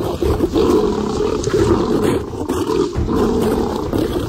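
Young male desert lions fighting, with continuous loud, rough roars and snarls as they scuffle in sand.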